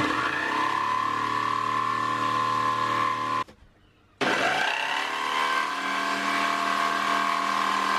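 Electric jigsaw running and cutting through a wooden board, a steady motor whine with the blade chattering in the wood. It stops abruptly about three and a half seconds in, then starts again about half a second later, spinning up and cutting steadily.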